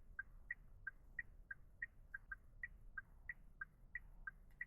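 Faint electronic beeping, about three short beeps a second alternating between a lower and a higher pitch, during smart-key programming.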